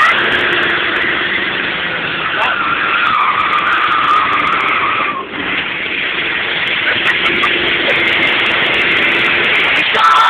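Car tyres squealing as the car slides through a drift, with the engine working hard underneath, heard from inside the cabin. The squeal wavers in pitch and drops off briefly about five seconds in before picking up again.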